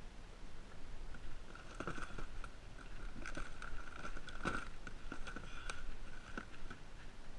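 Irregular clicks and knocks of a plastic tackle box being handled against a plastic kayak hull, with one louder knock about four and a half seconds in.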